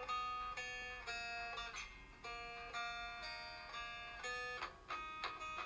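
Background music of plucked guitar notes, several ringing together and changing every half second or so.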